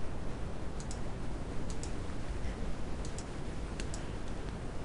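Computer mouse clicking a handful of times, short sharp clicks, several in quick pairs, over a faint low background hum.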